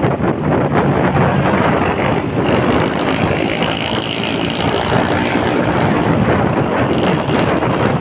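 Wind buffeting the microphone while riding a motorbike, with the engine and road noise running steadily underneath.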